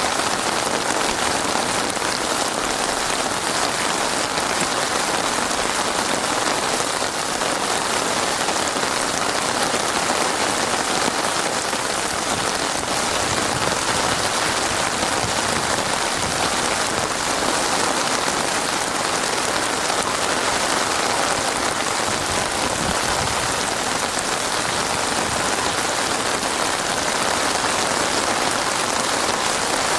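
Heavy rain pouring steadily onto a surface, a dense even hiss of many drops with no let-up.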